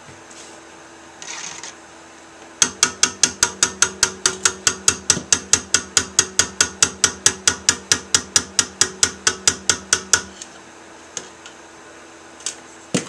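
Hand-held stick blender lifted out of soap batter and run, rattling with sharp, evenly spaced clicks, about five a second, over a low motor hum for about eight seconds before it stops. A faint knock follows near the end.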